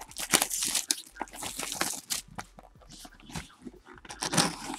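Plastic wrap crinkling and tearing and cardboard handled as a sealed hobby box of baseball cards is opened, in a quick irregular run of crackles.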